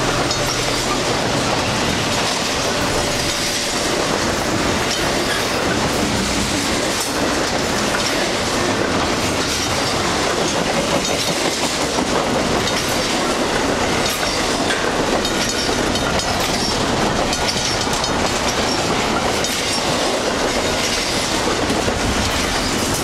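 Double-stack intermodal freight cars rolling past at close range over a level crossing: a steady rumble of steel wheels on rail with continuous clickety-clack as the wheels cross the rail joints.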